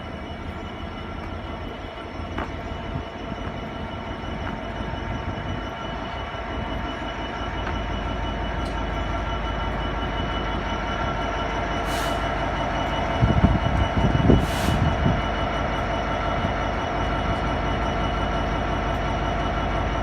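Class 66 diesel-electric freight locomotive, with its EMD two-stroke twelve-cylinder engine, running as it comes through with a heavy train of wagons. The sound slowly gets louder, with a few louder rumbles about two-thirds of the way in.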